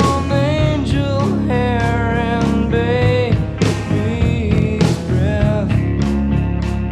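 Rock music playing from a vinyl record through a hi-fi and loudspeakers: steady drum hits under a held, gliding melody line.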